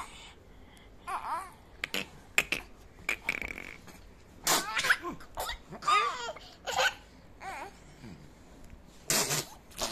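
Young children laughing and babbling in short bursts with brief pauses between, some bursts breathy and giggly.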